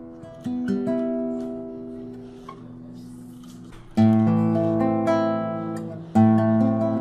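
Acoustic guitar music: strummed chords ringing out and fading, with a new strum about half a second in, a louder one at about four seconds and another just past six seconds.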